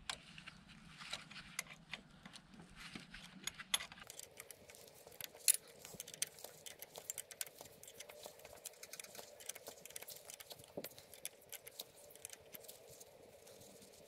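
Ratchet and spanner working the bolt on a Suzuki SV650's gear-shift linkage: quiet, irregular metal clicks and clinks of the tools, coming thicker after about four seconds.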